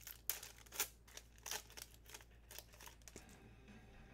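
Trading cards and their pack wrappers being handled: a string of short crinkling, rustling snaps that thin out after about three seconds.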